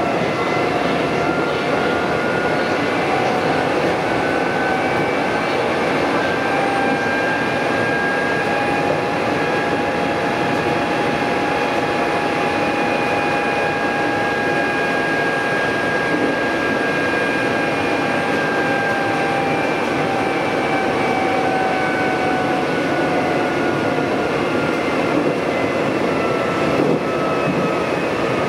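Semboku Rapid Railway 3000 series electric train running at speed, heard from the leading car: steady rumble and rail noise under a whine that rises in pitch over the first several seconds, holds, then falls slowly through the second half as the train slows.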